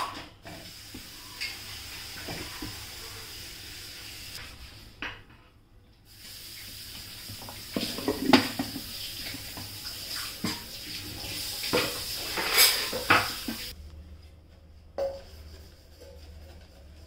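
Rice boiling in an earthen clay pot, a steady bubbling hiss, with the clay lid and pot knocking and clinking sharply several times as they are handled.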